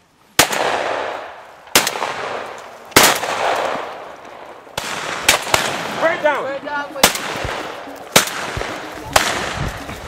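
Shotguns firing repeatedly at birds flying overhead: about ten sharp shots at irregular intervals of roughly a second, some louder and some fainter, each trailing off in a short echo.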